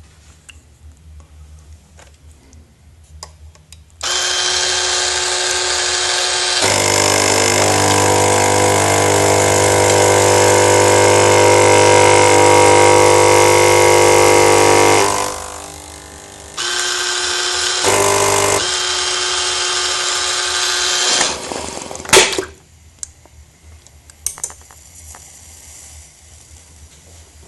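Krups XP7240 espresso machine's pump running with a loud, steady buzz, starting about four seconds in and growing louder a couple of seconds later. It falls away briefly around the middle, cuts out once for a moment, and stops about two-thirds of the way through, followed by a single sharp click.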